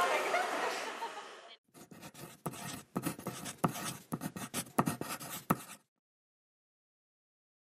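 Chatter and laughter fade out, then a pen scratches across paper in quick irregular strokes for about four seconds, a writing sound effect, which cuts off suddenly into silence.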